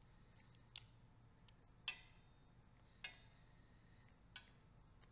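About five short, sharp metallic clicks at irregular intervals, the loudest about one, two and three seconds in, as a flexible spring-shafted tool knocks against the aluminium crankcase of a Honda CBX 1000 engine. Faint room tone between them.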